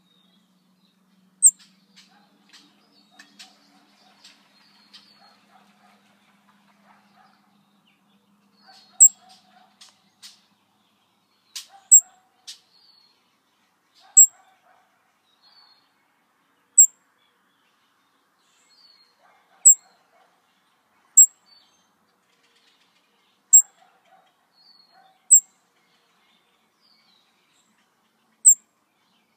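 Young hummingbird giving single high, sharp chip notes, about one every two to three seconds. Fainter, lower bird chirps and twitters come in between.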